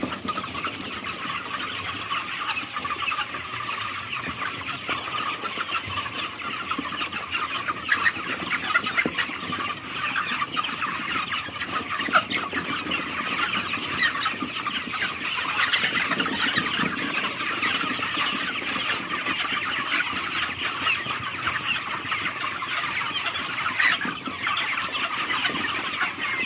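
A large flock of month-old broiler chickens calling all at once, a dense, unbroken chorus of high-pitched cheeps.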